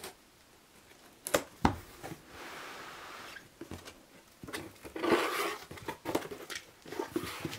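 A blade slitting the packing tape on a cardboard shipping box, then the box's flaps pulled open and rustled, with a few sharp knocks and scrapes.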